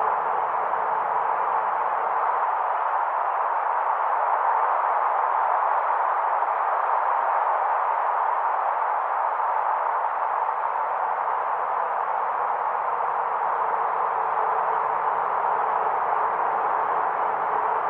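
Wind blowing steadily as a windy-night ambience, an even whooshing noise. Its low rumble drops away for several seconds early on and then returns.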